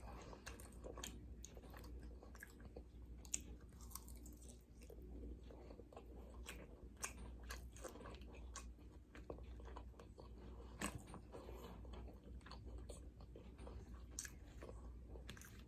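Faint close-up chewing of a fried chicken and glazed donut sandwich: many soft, irregular mouth clicks and smacks, with now and then a light crunch, over a steady low hum.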